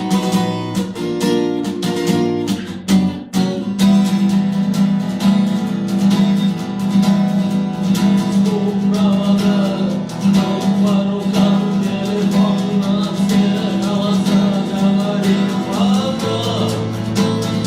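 Acoustic guitar strummed in a steady rhythm, playing a rock song, with a melody line weaving over the chords in the second half.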